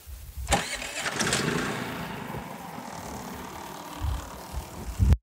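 Generac iQ3500 inverter generator starting about half a second in, coming up to speed, then settling into a steady, slightly quieter run.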